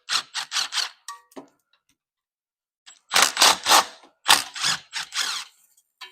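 Hand ratchet wrench clicking in short runs of strokes: a quick series of clicks at the start, then several dense bursts of ratcheting about three to five seconds in.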